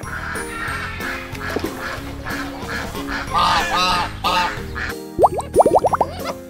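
Domestic ducks quacking, several calls in a cluster a little past the middle, over children's background music. Near the end comes a quick run of loud rising squeaks.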